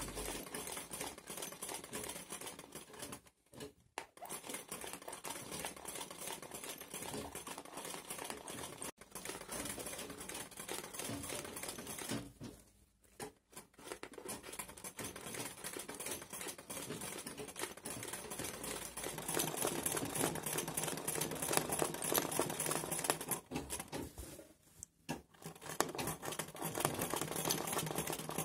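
Black domestic sewing machine stitching fast, a rapid run of needle clicks as it embroiders through hooped cloth. It stops briefly three times, at about four, thirteen and twenty-five seconds in, and runs louder from about nineteen seconds.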